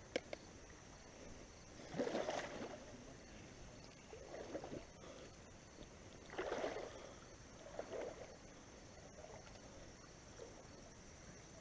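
Water sloshing and splashing in about four short bursts a couple of seconds apart, over a faint steady high insect drone.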